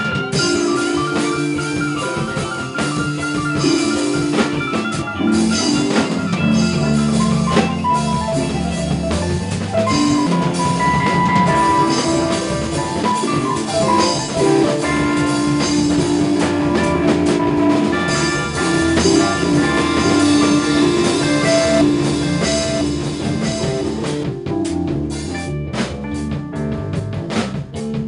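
Instrumental jazz-rock band playing: drum kit, electric bass, electric guitar and electric keyboards together in a steady groove. The sustained notes thin out near the end, leaving the drums more to the fore.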